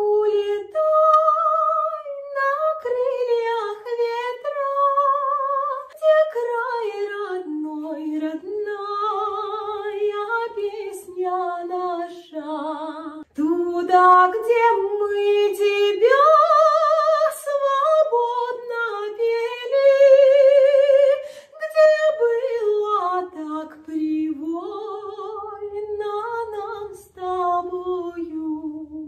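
A woman singing solo with no instruments, a slow melody of held notes with vibrato.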